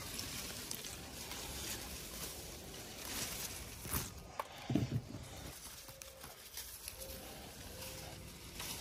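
Peach tree leaves and branches rustling as a hand pushes through them and handles the fruit, with a few soft bumps of handling noise around the middle.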